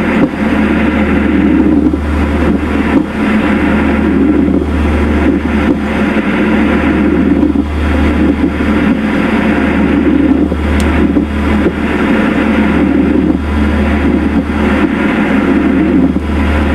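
Recorded pleural friction rub heard through a stethoscope on the chest: a rough creaking, classically likened to the rubbing of coarse leather or a wooden ox-cart wheel. It is made by inflamed pleural layers rubbing against each other with each breath, and it swells and fades every second or two over a steady low hum.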